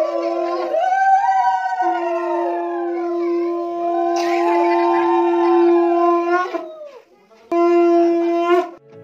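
Wedding wind music, shehnai-style: a reed wind instrument plays a wavering, sliding melody over a steady held drone note. The drone drops out briefly about a second in, and the music breaks off for a moment about seven seconds in before resuming and stopping just before the end.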